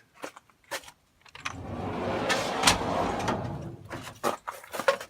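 Long metal drawer of a Knapheide service body's transverse compartment rolling shut on its slides: a rumbling slide of about two and a half seconds starting a second in, followed by a few light clicks and knocks near the end.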